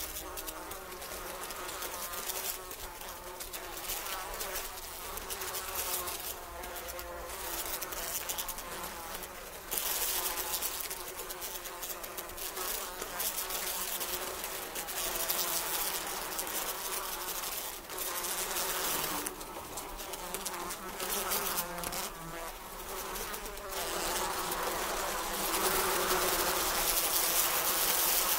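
A swarm of many flies buzzing continuously, with the wavering buzz swelling and fading as individual flies pass close, loudest near the end.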